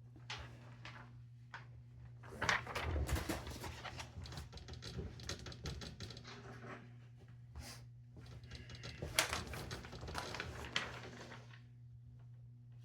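Brother GX-6750 electronic typewriter typing: three runs of rapid key strikes with short pauses between them, stopping near the end, over a steady low electrical hum.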